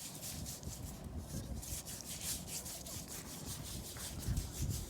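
Digging in beach sand for a metal detector target: a series of irregular scraping and rubbing strokes.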